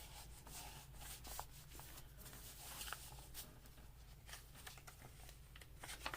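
Faint paper rustling and light scattered taps as small pieces of paper are handled and pressed onto a journal page, over a low steady hum.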